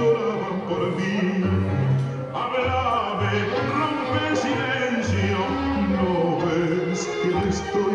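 Tango music playing, its bass line stepping from note to note about every half second under the melody.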